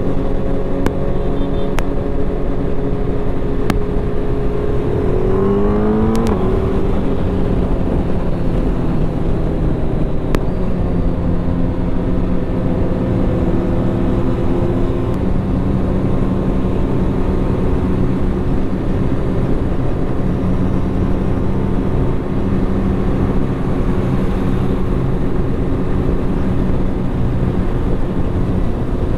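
Suzuki Hayabusa's inline-four engine running at highway cruising speed under heavy wind rush, its pitch rising briefly about six seconds in as it speeds up, then holding steady again.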